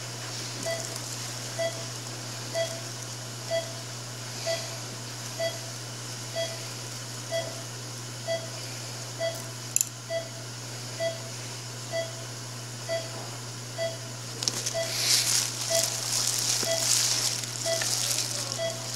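Patient monitor beeping steadily about once a second, a short mid-pitched tone with each heartbeat, over a steady low equipment hum. For a few seconds near the end there is the crinkling of the plastic sleeve on an ultrasound probe being handled.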